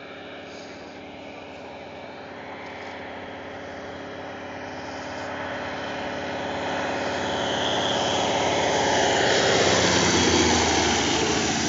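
Propeller engine of a single-engine radial-engined agricultural plane, growing steadily louder as it approaches on a low pass. It is loudest about ten seconds in, where its pitch drops slightly as it passes.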